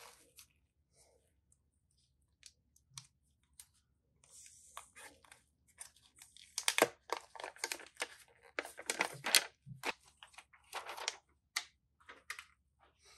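Gloved hands handling smartphone box packaging: scattered light clicks and taps, then rustling and crinkling of plastic and cardboard that comes in dense bursts from about halfway through.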